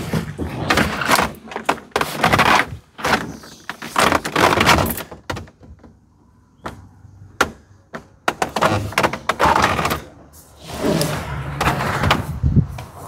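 A thin plastic dash cap being pressed and slid by hand over a pickup's dashboard: a run of scraping rubs and thunks, with a couple of sharp knocks about halfway through.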